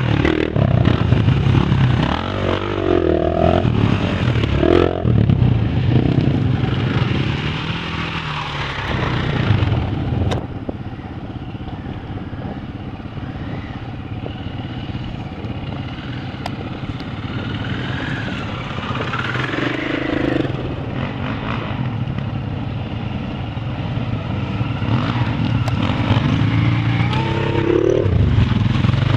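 Several off-road motorcycles ride in a line through mud and standing water, engines revving up and down. They are loud at the start, fainter for a stretch in the middle, and louder again near the end as a bike passes close.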